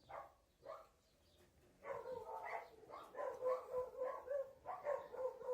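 A dog gives two short yips, then from about two seconds in a continuous high-pitched whining that pulses about three times a second.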